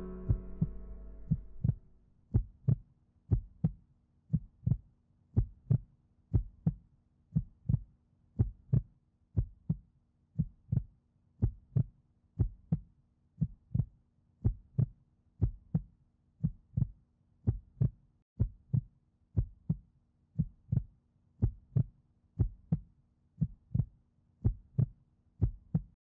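A piano chord dies away, then a heartbeat sound effect takes over: steady double thumps, lub-dub, about once a second, over a faint steady hum.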